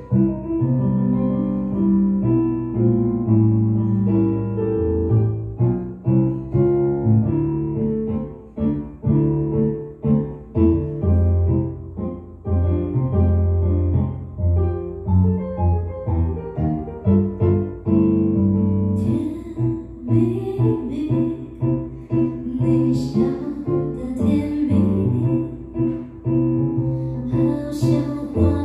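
Nord Electro 6D stage keyboard played on a piano sound: chords with a bass line. A woman's singing joins in the later part.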